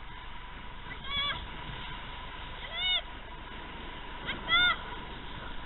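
Three short, high-pitched voice calls, each rising then falling in pitch, spaced about a second and a half apart, over a steady rush of wind and skis sliding on snow while skiing downhill. A faint steady whine runs underneath.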